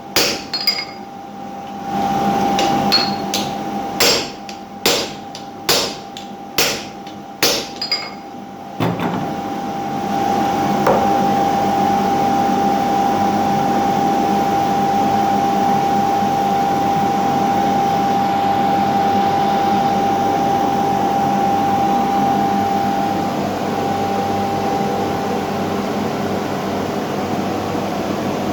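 Hammer blows on steel over an anvil, a little more than one a second, each with a short metallic ring, for about the first nine seconds. Then a steady machine hum with a constant whine takes over and runs on.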